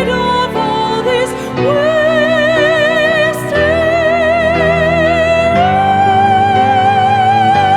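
Slow ballad: a high voice sings long, wavering held notes without clear words over sustained chords, the melody stepping up to a new note about a second and a half in and again past the middle.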